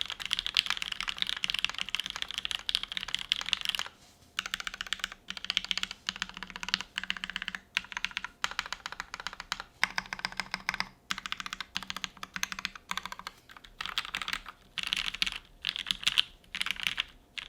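Typing on a mechanical keyboard with lubed and filmed linear switches (JWK Giant V3), a polycarbonate plate and GMK keycaps. A fast continuous run of keystrokes, then short bursts of typing with brief pauses between them from about four seconds in.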